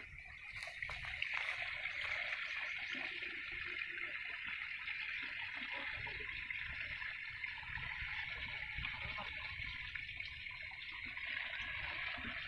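Water pouring steadily from a bucket into the outlet pipe of a diesel-engine irrigation pump, priming the stopped pump before it is started.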